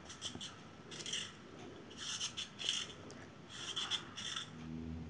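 Metal vegetable peeler scraping peel off a raw carrot in a series of short, faint strokes.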